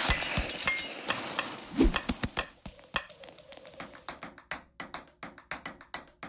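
Ice hockey skates stopping hard, a scraping spray of ice, then a dull low thump just under two seconds in. After that a table tennis ball clicks sharply back and forth off paddles and the table in a fast rally, several hits a second.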